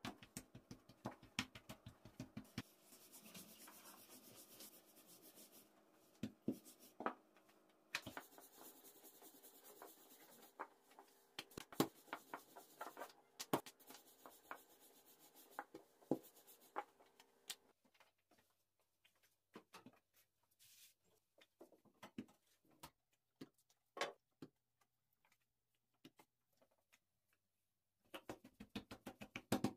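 Rolling pin and hands working thin dough on a tabletop: scattered light knocks, taps and rubbing as sheets of baklava pastry are rolled out, busier in the first half and sparser later.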